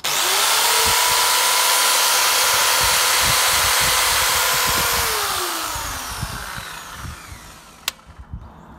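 MacAllister MPS750S-2 electric pole saw switched on and run free, not cutting: the motor and chain start abruptly with a steady high whine for about five seconds. On release it coasts down with a falling whine over about two seconds. A sharp click comes near the end. This is a first unloaded run to send chain oil around the bar.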